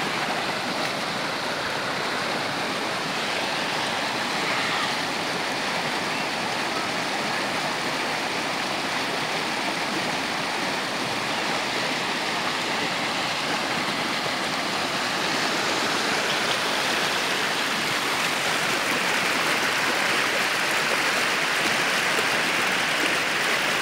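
Overflow from a full reservoir's spillway rushing down a rocky creek channel as fast, turbulent muddy water: a steady rush of water, a little louder in the last third.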